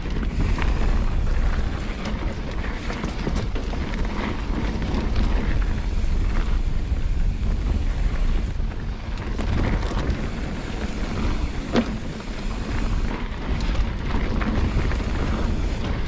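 Wind buffeting the microphone and a mountain bike's tyres rolling fast over a rough dirt trail on a descent, with scattered rattles and knocks from the bike, one sharp knock about twelve seconds in.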